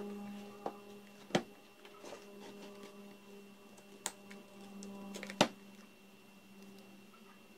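Several sharp clicks and knocks of a power-tool battery pack's plastic casing and cells being handled, the loudest about a second and a half in and again about five and a half seconds in, over a steady low electrical hum.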